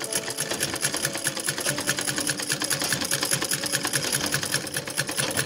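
Sewing machine running steadily at a rapid, even stitch rate, stitching two pieces of cloth together along their edges.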